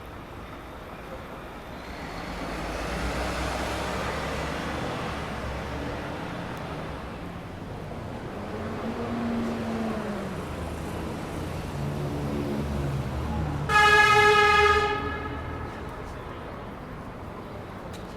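City street traffic: a vehicle's engine and tyre noise swells and passes, then about fourteen seconds in a vehicle horn sounds one loud blast lasting about a second.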